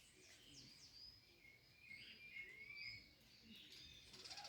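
Faint chorus of several small birds singing: short high chirps, quick downward-sweeping whistles and warbled phrases overlapping one another.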